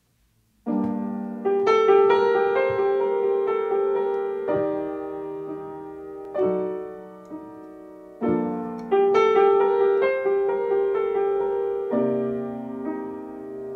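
Acoustic upright piano playing a slow solo introduction: chords struck one after another, each left to ring and fade before the next. It begins a little under a second in.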